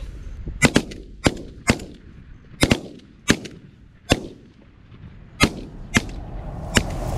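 A volley of about ten shotgun shots in quick succession, some in close pairs, as hunters fire at Canada geese flying in over decoys.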